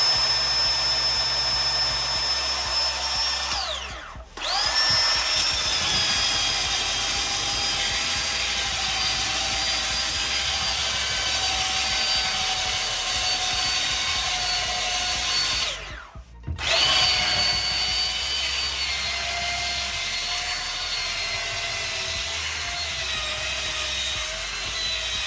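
Ryobi One+ 18V cordless belt sander running with a high whine, sanding under load. It cuts out about four seconds in and again about sixteen seconds in, spinning back up each time. Its pitch is lower after the second restart, as the battery runs nearly flat.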